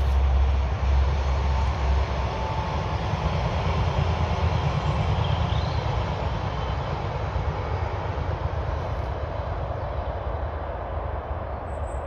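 Steady rumble of a passing vehicle, loudest near the start and slowly fading away.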